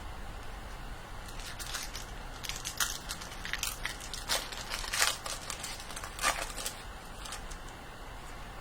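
Foil trading-card pack wrapper crinkling and crackling as it is handled and crumpled: a quick run of sharp crackles starting about a second in, loudest in the middle, dying away near the end.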